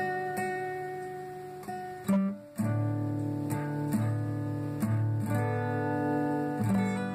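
Acoustic guitar playing chords, the strings left to ring between strokes. The sound drops out briefly a little over two seconds in, then a new chord is strummed repeatedly.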